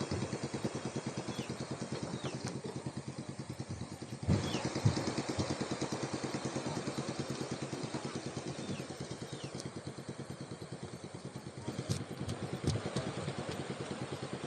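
A small engine running steadily with a fast, even putter, with a couple of knocks about four seconds in and near the end, and short high falling chirps over it.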